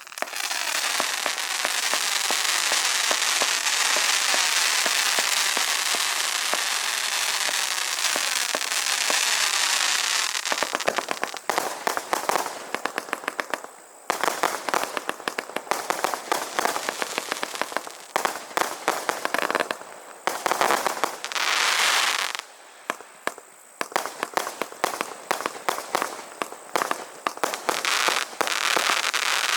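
Bulldog Fireworks 'Devil's Fire' firework going off: a dense, continuous crackling hiss for about ten seconds, then repeated spells of rapid crackling pops with short gaps between them.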